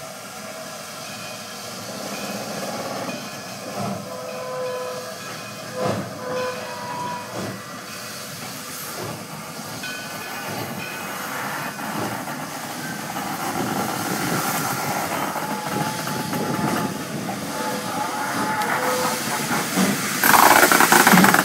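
Steam locomotive No. 745 moving slowly at close range, hissing steam, with a few heavy knocks along the way. The sound grows steadily louder as the engine nears, and a loud blast of steam hiss breaks out near the end as it passes alongside.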